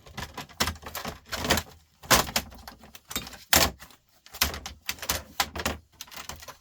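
Irregular clattering knocks, clicks and scrapes of plastic and metal TV parts being handled and pulled apart during a teardown, the sharpest knocks about two seconds in and again a second and a half later.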